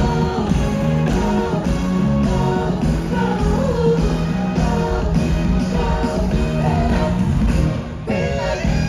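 Live concert music from a band over an arena sound system, with drums keeping a steady beat and a singing voice over it. The music thins out briefly near the end.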